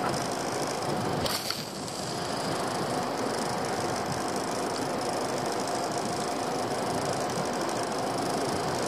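Small fishing boat's engine running steadily as the boat motors along, under a constant rush of water and wind noise.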